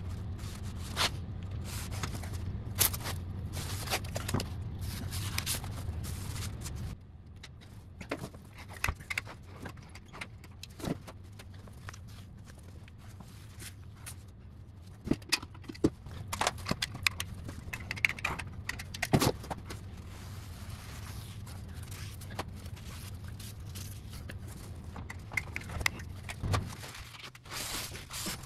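Scattered clicks, scrapes and rustles of hand work along a baseboard: blue painter's tape being pulled from the roll and pressed down, and a paper towel wiping, over a steady low hum.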